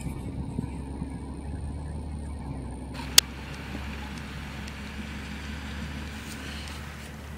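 Case IH Puma 210 tractor's six-cylinder diesel running steadily as it hauls a loaded slurry tanker, a low even drone, with a single sharp click about three seconds in.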